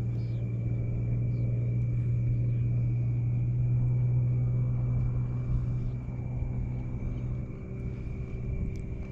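A steady low motor hum with a thin, steady high whine above it, swelling a little toward the middle and easing off later.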